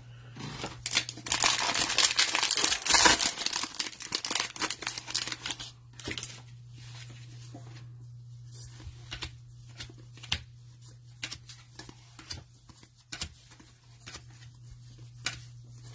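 Cellophane wrapper of a football trading-card cello pack being torn open and crinkled for about the first six seconds, then scattered light clicks and slides of the cards being handled. A steady low hum runs underneath.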